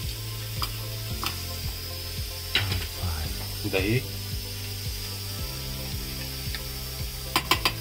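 A steel spoon clinking and scraping against steel bowls as roasted chana and curd are spooned into the coconut pieces. There are a few sharp clicks, then a quick run of them near the end, over a steady low hum.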